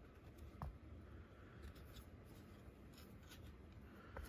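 Near silence with a few faint ticks and rustles of a baseball card being handled and turned over in the fingers.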